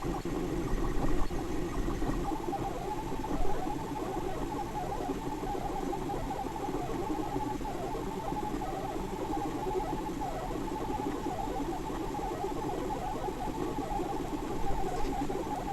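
3D printer printing, its stepper motors whirring in two wavering tones that shift as the print head moves, with a few brief louder bumps.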